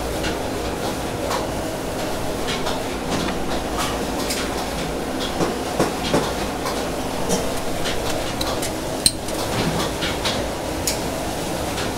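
Seafood-market clatter: scattered sharp clinks and knocks of dishes and utensils over a steady background hum.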